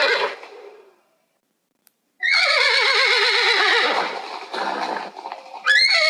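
Animal calls: a short call at the start, then after a brief silence a long, quavering call that falls in pitch, followed by a rougher breathy sound and another call near the end.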